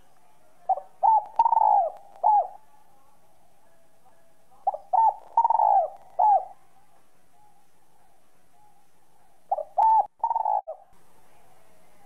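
Spotted dove (Streptopelia chinensis) singing its territorial coo three times, in a clear whistle-like voice. Each phrase is a few short coos around one longer, falling coo.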